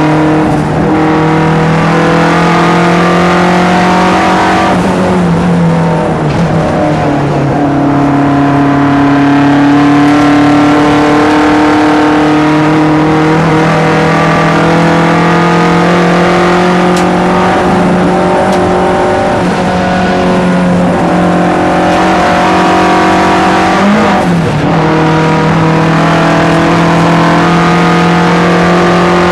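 Turbocharged Saab 900 inline-four race engine running hard under throttle, heard from inside the cabin. The engine note drops around five seconds in, then climbs slowly again, with a brief rise and fall in pitch around 24 seconds.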